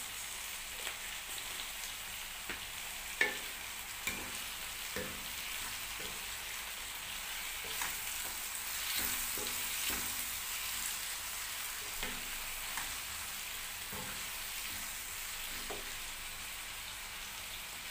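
Chopped cabbage, zucchini and red bell pepper sizzling steadily in a frying pan over a gas flame, stirred with a wooden spoon that knocks against the pan now and then, sharpest a little after three seconds in.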